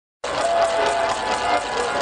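Street celebration crowd noise starting abruptly, with a few held single-pitch horn tones over the din.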